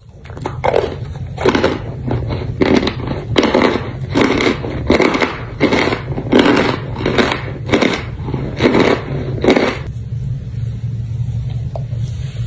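Chunks of cornstarch crunching as they are chewed, in a steady rhythm of roughly one crunch every two-thirds of a second that stops about ten seconds in. A steady low hum runs underneath.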